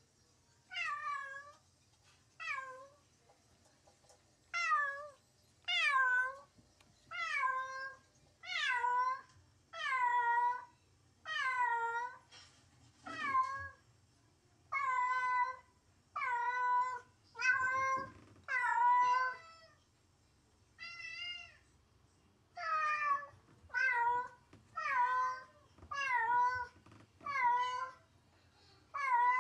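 Domestic cat meowing over and over, about twenty loud meows of under a second each, roughly one a second, with a short lull partway through. Each meow starts high and slides down in pitch. It is the lonely, separation-anxiety crying of a cat left on its own.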